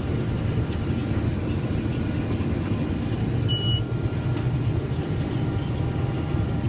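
Combine harvester running steadily during harvest, an even low engine and machinery rumble. A single short high-pitched beep sounds about three and a half seconds in.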